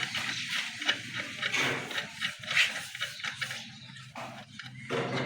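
Irregular scraping and rubbing of hand work on a motorcycle wheel, tyre and tube.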